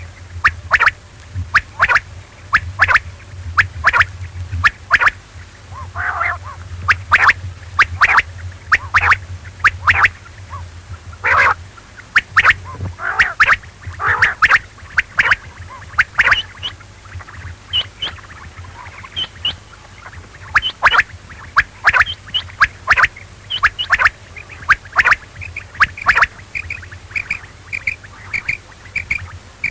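Quail calling over and over, a quick run of short, sharp notes about two a second, with a low hum underneath that fades out about halfway through.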